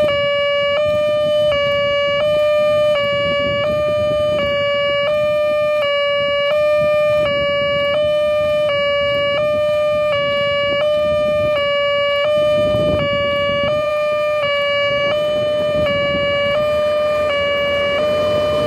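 Electronic railway level-crossing warning alarm sounding a steady repeating two-beat tone, about two beats a second, with a low rumble underneath.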